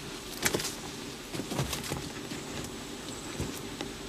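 Irregular scuffs and knocks of footsteps on dirt and loose stone as a person goes into an old gold-mine tunnel, over a steady low hum.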